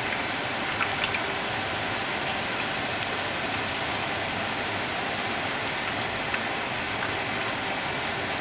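Buñuelo dough frying in a skillet of hot oil: a steady sizzling hiss with a few sharp crackles now and then.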